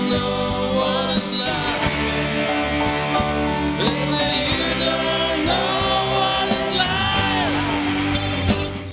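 Rock band music: an instrumental passage with a lead melody sliding between notes over electric guitars, bass and drums.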